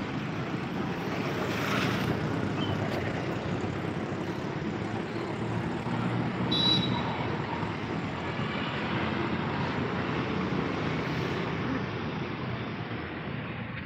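Steady street traffic noise, a rumble of vehicles with a brief high beep about six and a half seconds in.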